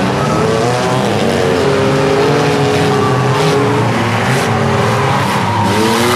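Engines of several demolition-derby compact cars running hard around the track, the pitch climbing as cars accelerate just after the start and again shortly before the end.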